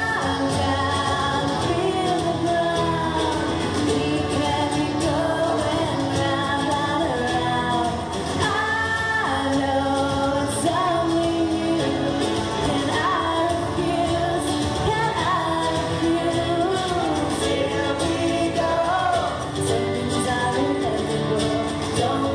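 Female lead vocal singing a pop-rock song over acoustic band accompaniment, in a live concert recording.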